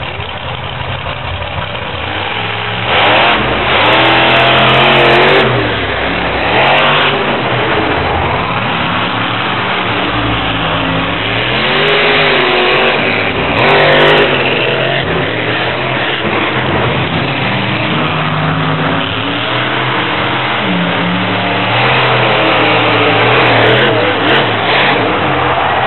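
Monster trucks' supercharged V8 engines revving hard, the pitch rising and falling again and again, loudest a few seconds in and again around the middle.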